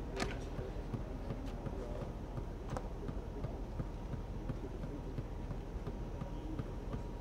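Football training-ground ambience: a steady low rumble with scattered knocks and thuds of footballs being kicked, and two sharper knocks, the first about a quarter second in and the second near three seconds in.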